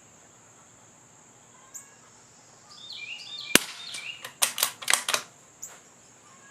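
A single suppressed shot from a CZ 455 .22 LR bolt-action rifle fitted with a Dead Air Mask suppressor. About a second later comes a quick run of metallic clicks as the bolt is worked to eject the spent case and chamber the next round.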